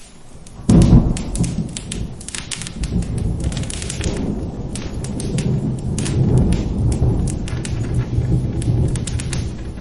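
A thunderclap breaks about a second in and rolls on as a long, low rumble over steady rain. Sharp pops of a crackling wood fire continue throughout.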